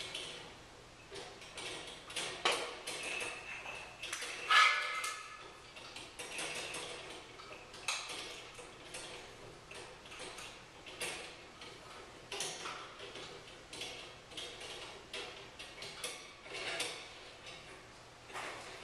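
Irregular small clicks, taps and knocks, about one or two a second, with a brief ringing clink, like metal or glass struck, about four and a half seconds in as the loudest sound.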